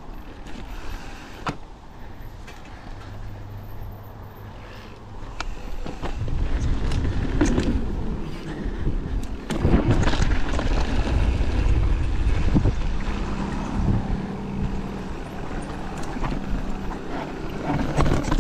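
Downhill mountain bike riding a rough dirt and rock trail: tyres rolling over dirt with knocks and rattles from the bike as it hits roots and rocks. The noise gets louder about six seconds in as the bike picks up speed.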